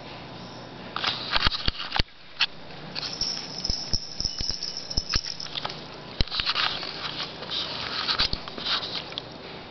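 Irregular sharp clicks, taps and scratchy rustling as a puppy and a cat move about a plastic pet playpen on a tile floor.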